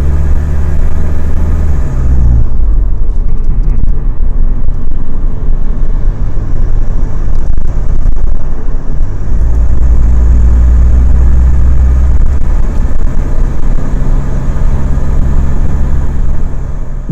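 Mitsubishi Triton's 4N15 turbodiesel engine running loudly, its pitch shifting a couple of times, with a high hiss that fades after about two seconds and returns faintly. The hiss is the kind of air-leak whistle that a badly sealed boost-gauge line on the turbo intake can cause.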